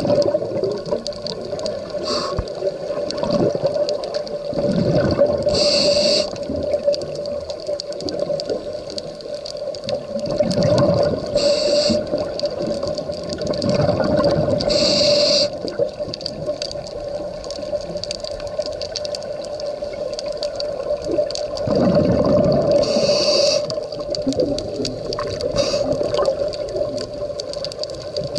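Scuba breathing heard through an underwater camera: about four breaths, each a deep gurgling rush of exhaled regulator bubbles followed by a short hiss of inhalation through the regulator, over a steady hum.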